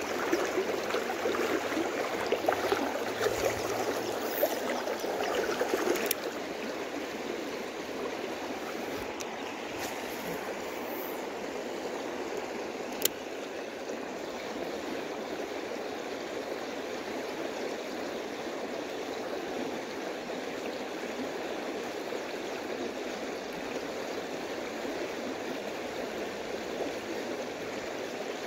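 Creek water rushing steadily over a line of rocks. It is louder and choppier for the first six seconds or so, and there is a single sharp click about thirteen seconds in.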